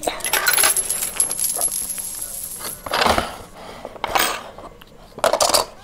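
Coins clinking and clattering onto a plastic lap desk as they are handed over and gathered: a run of light clicks and rattles, with louder clatters about three, four and five seconds in.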